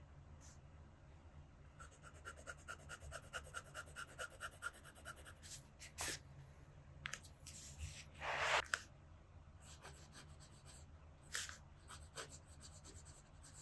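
Faint handling of a fountain pen over paper: a run of quick, even ticks, about five a second, in the first few seconds, then a sharp tap and a louder rub around the middle. Near the end, the double broad nib scratches across the paper as writing begins.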